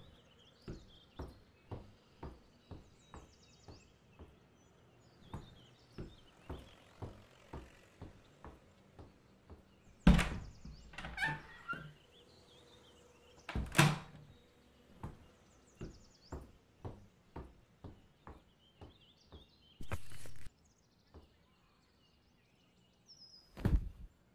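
Soft, regular knocks or steps about two a second, with a few louder thuds like a door about ten and fourteen seconds in and again near the end. A brief rustle of paper about twenty seconds in, as a letter is handled from its envelope.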